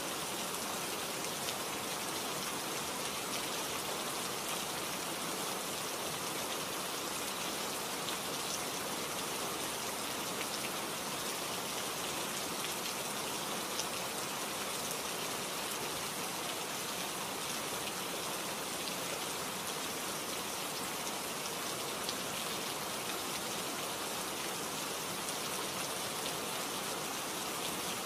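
Steady rain-like hiss with a few faint scattered ticks, unchanging throughout.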